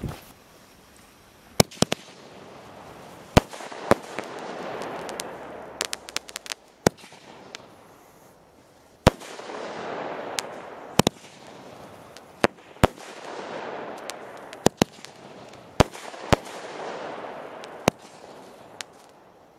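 Homemade nine-shot 25 mm firework cake firing: a dozen or more sharp bangs from the shots going up and their flash-powder bursts, spread over several seconds. Between the bangs a rushing hiss swells and fades about four times.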